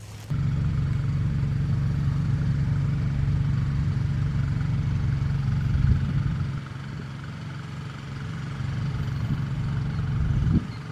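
A motor engine running steadily at a constant speed, a low hum. It starts abruptly, drops in level a little after halfway, swells again and cuts off just before the end.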